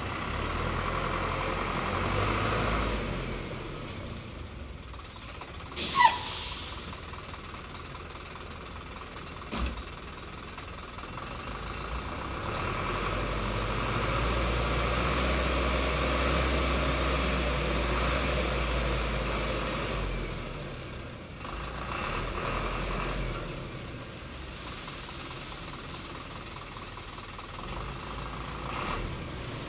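Thaco Forland dump truck's diesel engine running while its hydraulic hoist tips the bed to unload sand, the engine note swelling through the middle as the bed lifts. A short, sharp hiss about six seconds in is the loudest moment.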